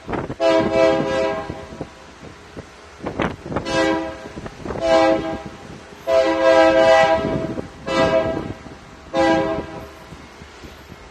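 Union Pacific freight locomotive's air horn sounding a multi-note chord in a pattern of six blasts: one long, two short, one long, two short. Brief noise bursts come between the blasts.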